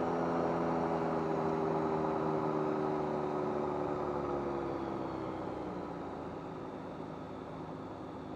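Rotax 912UL flat-four engine and propeller of a Chinook Plus 2 ultralight running in flight: a steady drone whose pitch slowly falls and level eases off about halfway through.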